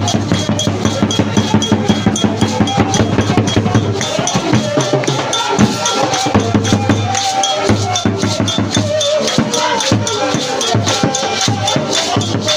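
Live church praise music: drums and percussion beating a fast steady rhythm over a bass line, with voices singing.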